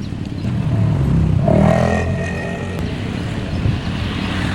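Street traffic: a motor vehicle's engine passes close by, growing louder to a peak about one and a half seconds in and then fading, over a steady low traffic rumble.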